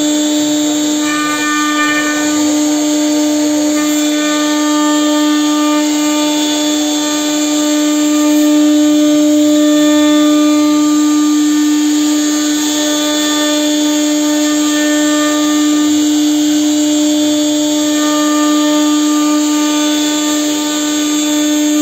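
1325 CNC router spindle running steadily with a constant whine as its bit mills a relief pattern into a wooden door panel, with the noise of the cutting under it.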